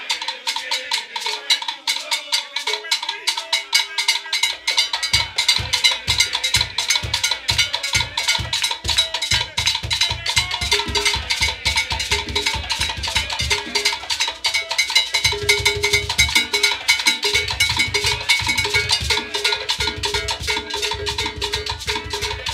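Live Cuban rumba percussion: a fast, dense clatter of wooden clave and sticks, with the low drums coming in about five seconds in and playing on in rhythm.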